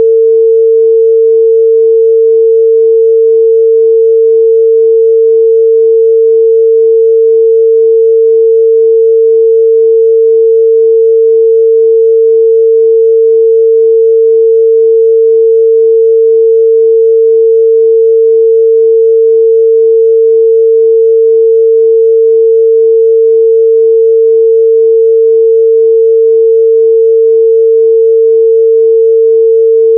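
A pure 451 Hz sine-wave test tone, held steady and loud at one pitch with no other sound.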